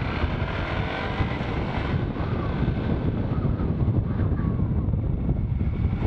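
Motorcycle riding through a gentle curve, its engine running steadily under heavy wind rumble on a helmet-mounted microphone.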